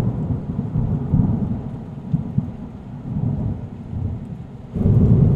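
Rolling thunder with rain: a deep rumble that fades away, then swells up again near the end.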